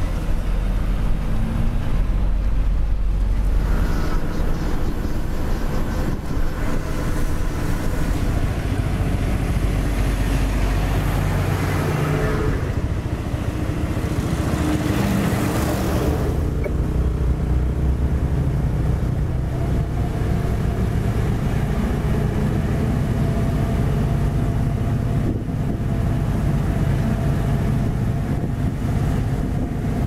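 Heavy diesel truck engine running under way, with steady road rumble, heard from inside the cab. A brief rush of broader noise comes near the middle, then steady vehicle and road noise continues.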